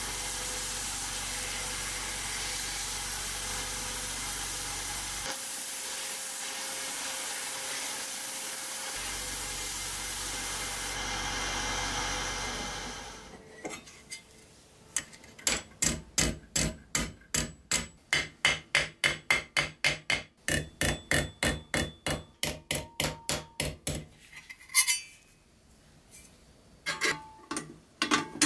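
Sandblaster nozzle hissing steadily as it blasts rust off a pressed-steel Tonka truck part, stopping after about 13 seconds. Then a hammer strikes steel about three times a second for roughly ten seconds, knocking dents out of the part, followed by a few light clicks and knocks as the bare steel pieces are handled.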